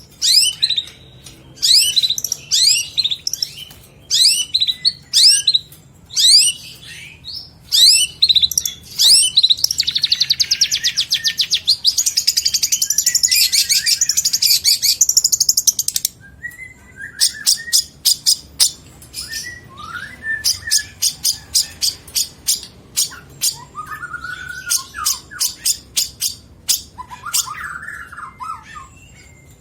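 Long-tailed shrike (cendet) singing a varied mimicking song: a run of quick falling high notes, then a fast, dense high trill for about six seconds, then rapid sharp ticks mixed with short lower chirps.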